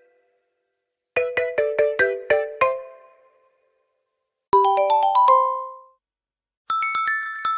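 Meizu X8 phone ringtones, short melodies of struck, mallet-like notes with brief silences between them. First a quick six-note marimba phrase, then about two seconds later a brief phrase of about five notes, then a run of bright, high chime-like notes near the end.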